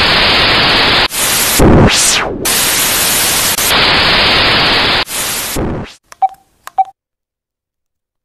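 Loud TV static sound effect: a hissing wash of white noise broken by short dropouts, with a falling whoosh about two seconds in. The static cuts off about six seconds in, followed by two short beeps.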